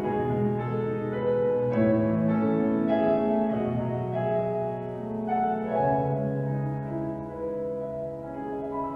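Solo piano playing slow, sustained chords, growing quieter toward the end.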